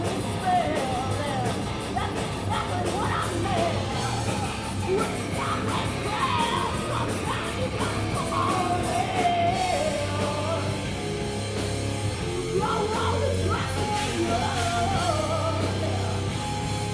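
A live rock band playing: a woman singing over electric guitars and drums.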